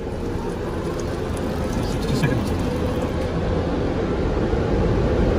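Automatic car wash dryer blowers rushing air over the car, heard from inside the cabin: a steady rush that grows gradually louder as the car passes under them.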